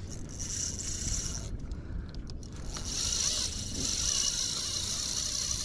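Spinning fishing reel whirring as its handle is cranked to retrieve line: a short spell about a quarter-second in, then steady from about halfway on.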